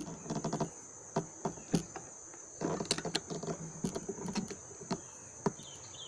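Steady high-pitched drone of insects (crickets or cicadas), with irregular sharp clicks and knocks close by, loudest a little under two seconds in and near the end.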